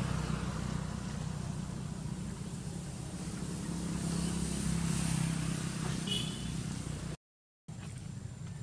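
Steady low hum of a motor vehicle engine running, with a brief high squeak about six seconds in. The sound cuts out completely for about half a second near the end.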